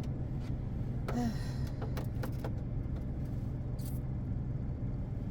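A just-started vehicle engine idling steadily, heard from inside the cab, with a few light clicks about two seconds in.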